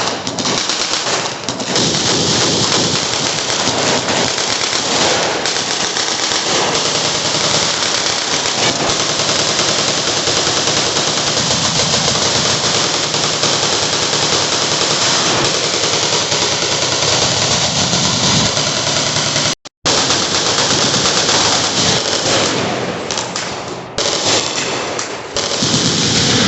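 Many machine guns firing at once: dense, overlapping automatic fire that never lets up, with a sudden brief dropout about twenty seconds in.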